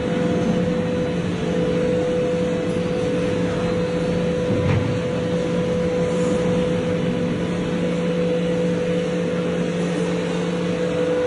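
Overhead crane running as it carries a suspended locomotive diesel engine, a steady electric motor whine and hum, with a single short knock about halfway through.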